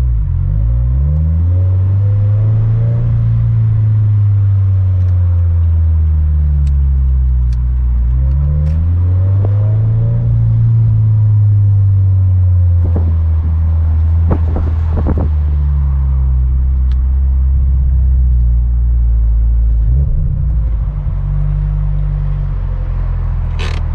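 Turbocharged 2013 Scion FR-S flat-four engine with a Greddy T518Z kit and quad-tip catback, running at low revs while the car moves slowly: its pitch rises and falls gently twice, then holds steady near idle for the last several seconds.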